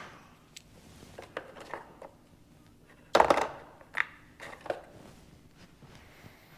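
Injection pump parts and tools being handled on a workbench: light clicks and taps, a louder clatter about three seconds in, then two smaller knocks.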